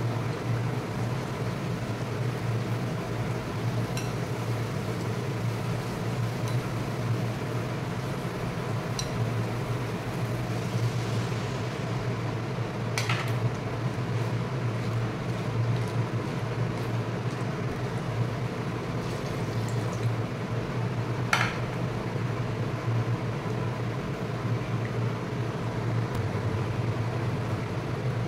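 Steady hum of an induction cooktop with gravy simmering in a wok, and a few sharp clicks of a spatula or spoon against the bowl and pan, two of them louder in the middle.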